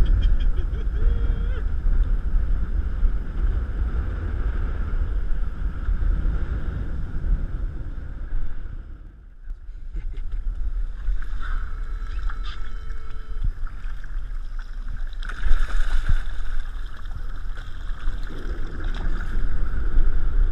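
Strong wind buffeting the camera microphone, with water sloshing and splashing as a hooked striped bass thrashes at the surface beside the boat.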